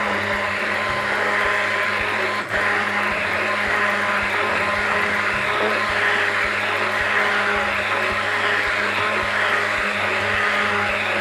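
Hand-held immersion blender running steadily with its blade down in a tall beaker, puréeing a cooked sauce smooth.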